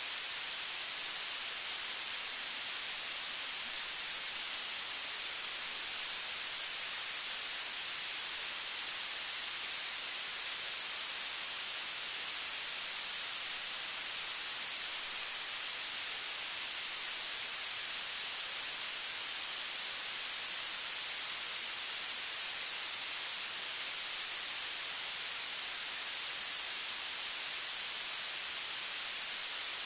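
Steady, even hiss of recording noise, strongest in the high register and unchanging throughout, with no other sound over it.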